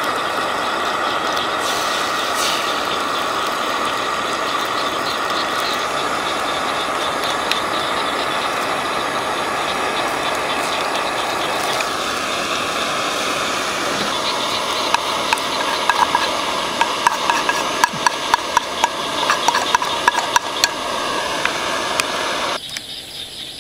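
Small portable gas canister stove burning with a steady hiss, its tone shifting twice midway. Rapid crackling ticks join in over the second half, and the sound cuts off suddenly near the end.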